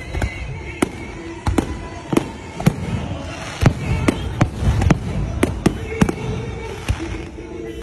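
Aerial fireworks bursting: an irregular string of sharp bangs, two or three a second, over a low background rumble.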